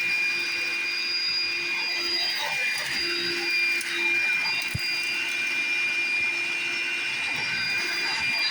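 Vacuum cleaner running steadily: an even high-pitched motor whine over a rushing hiss.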